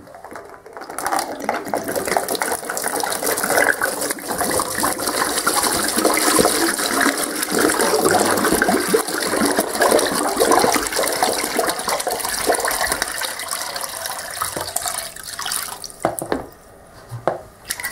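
Rust-remover solution pouring out of the filler neck of a 1986 Honda TRX70's steel fuel tank and splashing into a plastic dishpan as the tank is drained after a rust-dissolving soak. The pour starts about half a second in, runs steadily, and thins out near the end.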